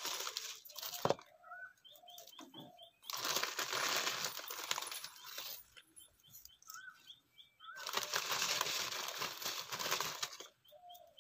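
Two long bursts of hissing noise, a couple of seconds each, with birds chirping between them and one sharp knock about a second in.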